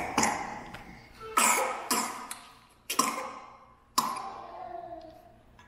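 A person in a coughing fit: about five sharp coughs, roughly one a second, each trailing off.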